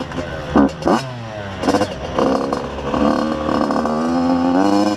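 Yamaha YZ85's two-stroke engine revving under a rider: its pitch dips briefly with a few sharp knocks in the first two seconds, then climbs and holds as the bike accelerates.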